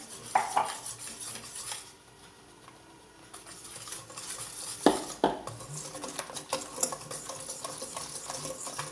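Wire whisk beating pancake batter in a stainless steel bowl, its wires ticking and clinking quickly against the metal. There is a short lull about two seconds in, and two sharp knocks about five seconds in.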